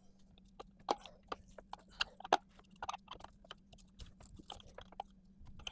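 Irregular light clicks and taps from a distributor being worked by hand into the 4.3L Vortec V6, turned and pushed to get its gear to mesh and seat.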